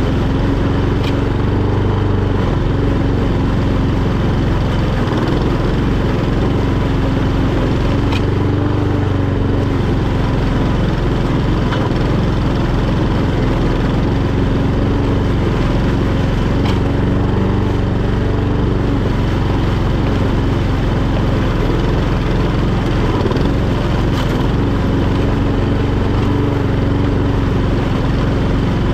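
Etesia Pro46 walk-behind lawnmower with its single-cylinder four-stroke Honda GCVx170 engine running steadily at constant speed.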